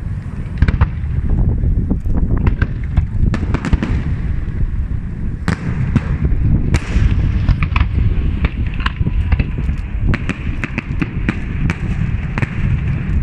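Aerial fireworks shells bursting: a continuous low rumble of detonations with many sharp cracks and pops in quick succession, several a second.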